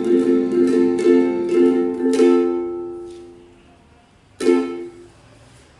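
Ukulele strumming chords at about two strums a second. A chord is then left ringing to fade out, and one last chord is struck a little over four seconds in and dies away, closing the song.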